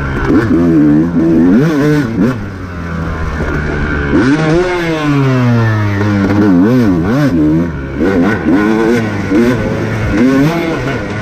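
Off-road racing dirt bike engine revving hard and dropping back again and again as the throttle is worked. A long rise about four seconds in falls away over the next couple of seconds.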